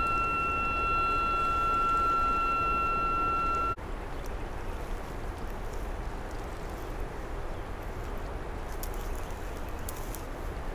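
A steady high-pitched tone with overtones sounds over the first few seconds and cuts off abruptly. Under it and after it, a steady rushing noise of high, fast-moving river water below a dam, with a few faint clicks near the end.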